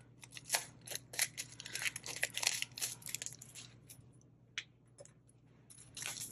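Holographic foil sequin packet crinkling and crackling as it is pulled open and handled. There is a quick run of crackles over the first three seconds, then only a few separate ones, then a few more near the end.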